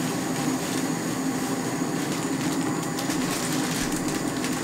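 A steady low rumble of kitchen background noise, with faint crinkling of a plastic zip-top bag being opened about three seconds in and again near the end.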